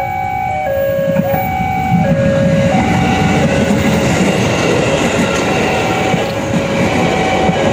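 Commuter electric multiple-unit train passing close by: a dense rumble of wheels on rail that builds about a second and a half in and carries on as the cars go past. A two-note electronic tone alternates steadily in the background.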